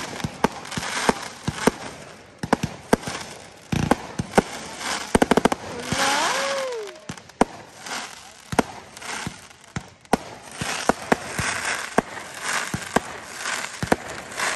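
Aerial fireworks bursting overhead: a steady run of sharp bangs with crackling between them, and a quick string of bangs about five seconds in.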